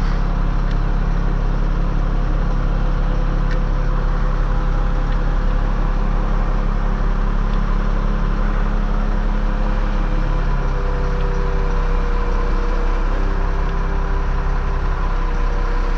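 Echo CS6700 two-stroke chainsaw idling steadily, with a slight change in its pitch about ten seconds in.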